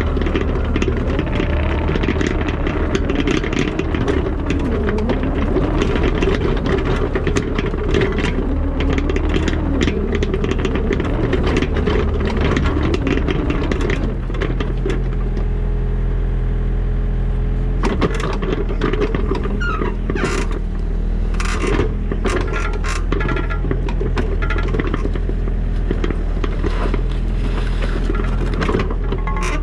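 Diesel engine of a construction machine (backhoe loader or mini excavator) running steadily under hydraulic work, with scraping and clanking of the bucket and linkage. The engine note changes about halfway through, and clanks and knocks come thickest in the last third.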